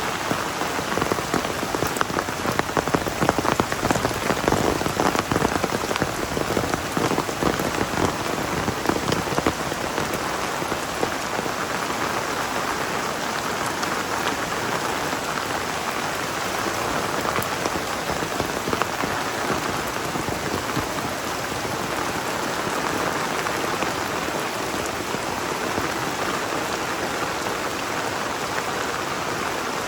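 Heavy rain falling steadily, a dense patter of drops hitting surfaces, with louder, closer drop hits during the first ten seconds or so.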